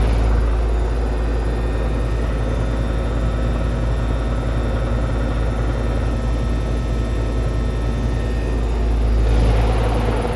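2004 Goodman heat pump outdoor unit running: a steady hum from the compressor and fan, with a deep rumble beneath it. It swells slightly near the end.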